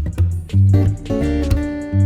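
Background music: guitar playing over a steady bass beat.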